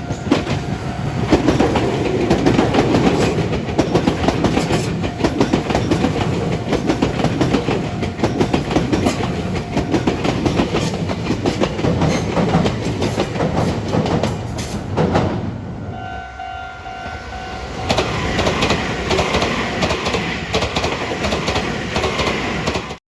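Meitetsu electric train running, wheels clattering over the rail joints in quick clicks. About 16 s in the noise drops and a short steady tone sounds, then the running noise returns and cuts off suddenly near the end.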